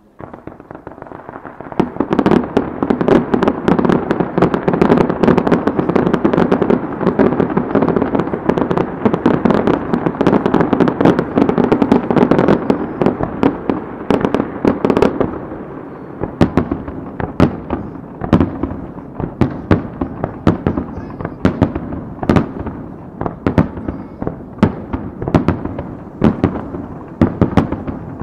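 Fireworks starmine, a rapid-fire barrage of shells launched and bursting together. It starts softly, then from about two seconds in becomes a dense, unbroken mass of bangs and crackling. Past the middle it thins to separate sharp bangs, several a second.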